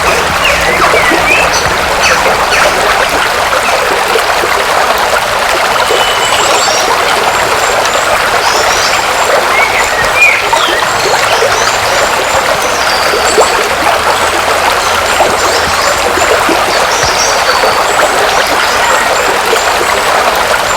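River water rushing and trickling over rocks in a steady, loud rush.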